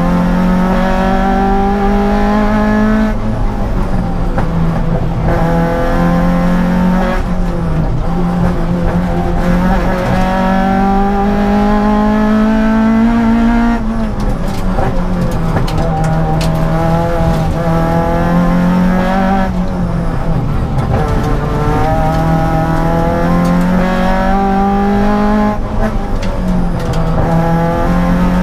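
Honda Civic EG rally car's B16 four-cylinder engine revving hard through the gears, heard from inside the cabin. The pitch climbs steadily, then drops sharply at each gear change or lift, about half a dozen times.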